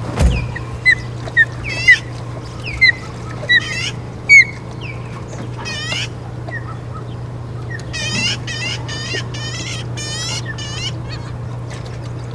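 Osprey landing on the nest with a thump, then calling: about six loud, sharp whistled chirps in the first four seconds or so, followed by longer rapid strings of chirps. A steady low hum runs underneath.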